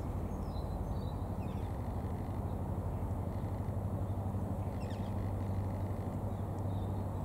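Steady low mechanical hum, with a few faint high chirps about one and a half seconds and five seconds in.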